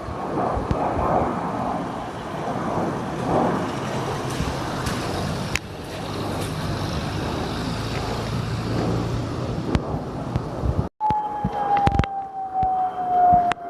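Low-flying airplane passing overhead, a loud steady rumble of engine noise. After a sudden break near the end, a single high whine slowly falls in pitch.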